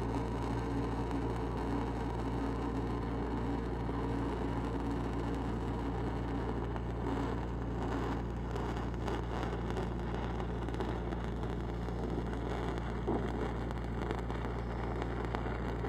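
Stick-welding arc crackling as a 5/32-inch E8010 cellulose rod burns, over the steady hum of a Lincoln SAE 300 engine-driven welding machine running under load.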